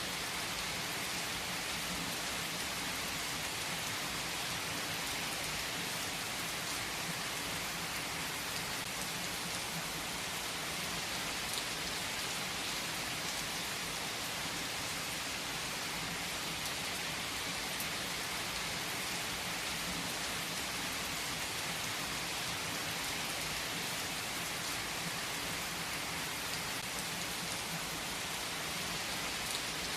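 Steady rain falling, an even continuous hiss of many drops, with a couple of faint single ticks.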